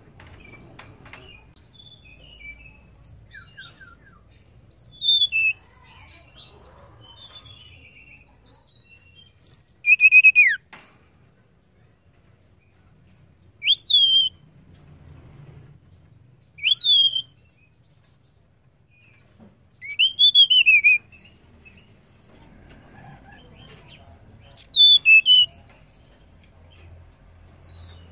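Female blue flycatcher (tledekan) calling: six short phrases of high, clear whistled notes, several sliding down in pitch and some rising then falling, spaced a few seconds apart, with softer twittering between them. It is the kind of female call played to stir a male tledekan into singing.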